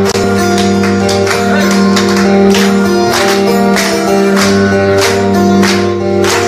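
Live acoustic band playing instrumentally: two acoustic guitars strum held chords while hand percussion keeps a steady beat.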